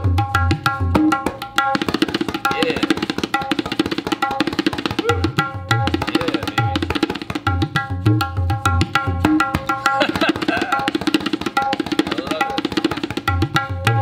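A tabla pair played fast and continuously: dense runs of sharp, ringing strokes on the tuned right-hand drum (dayan), mixed with clusters of deep bass strokes on the left-hand drum (bayan), some of them sliding in pitch. These are tabla variations played solo.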